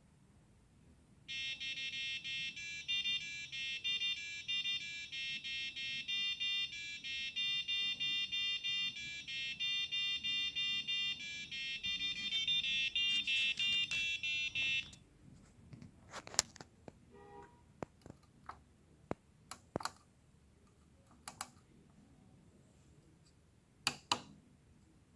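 Alarm clock buzzer playing an electronic alarm melody of short, high-pitched beeping notes, which stops suddenly about fifteen seconds in. It is followed by a few sharp, scattered clicks.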